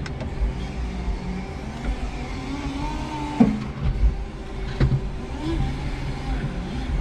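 Electric forklift's motors whining, the pitch rising and falling as the truck works, over a low rumble, with two sharp clunks in the middle.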